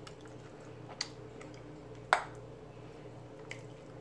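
A few light clinks and taps of a knife and fork against a dinner plate, the loudest about two seconds in with a brief ring. A faint steady hum sits underneath.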